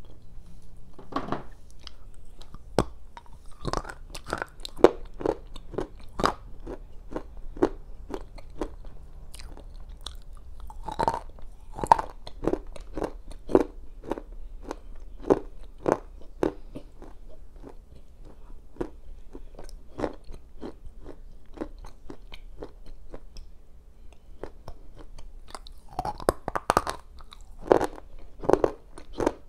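Close-miked crunching and chewing of a black slate clay bar, edible clay softened in boiling water so it can be crunched: a steady run of sharp crunches, one or two a second, with denser bites near the start, about eleven seconds in, and near the end.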